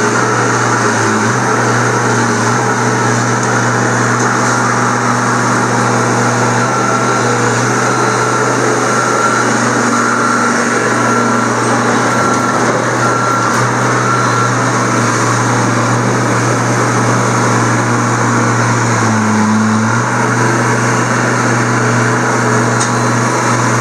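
John Deere compact track loader's diesel engine running at a steady speed, with a brief change in its tone about nineteen seconds in.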